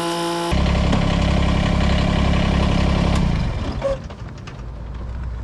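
Kubota BX25D compact tractor's three-cylinder diesel engine running steadily at idle through a newly fitted exhaust tip, then dropping away about three and a half seconds in, leaving a lower, quieter hum.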